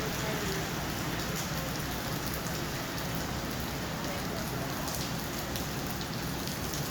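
Heavy rain pattering steadily on surfaces, a dense even hiss with fine drop clicks.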